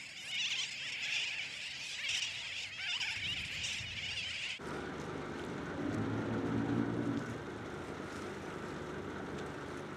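A sooty tern nesting colony calling: many birds at once in a dense, high chatter. About four and a half seconds in it cuts off and a steady low rumble takes over.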